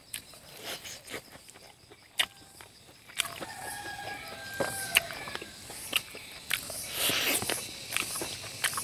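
Close eating sounds, clicks and smacks from chewing and picking at a chicken leg with the fingers. From about three seconds in, a chicken calls in the background with drawn-out, pitched notes.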